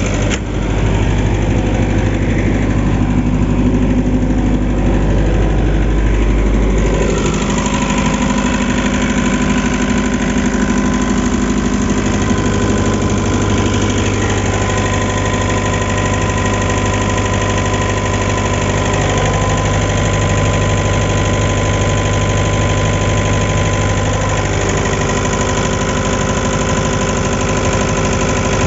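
Atlas Copco QAS 40 generator's Kubota V3800 four-cylinder diesel engine running steadily. Its low tone shifts a few times, about seven seconds in, around twelve seconds and again near the end.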